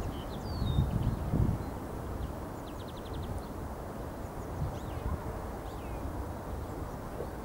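A steady low rumble with faint, high, short chirps of small birds scattered through it, including a quick run of about seven ticks about three seconds in.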